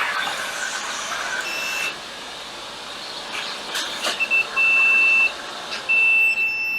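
Multimeter continuity beeper giving a high, steady tone in several beeps of different lengths as the probes touch the capacitor pads on an iPhone 8 Plus logic board, with a few probe clicks before it. The beep means very low resistance: a short on the line.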